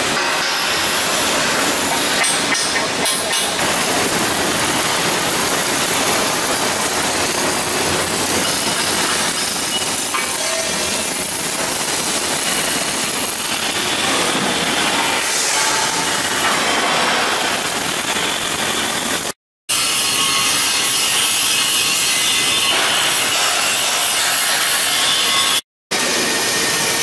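Steady, dense rasping noise of a steel fabrication shop floor, with arc welding on steel beams. A few sharp taps come about two to three seconds in, and the sound drops out briefly twice near the end.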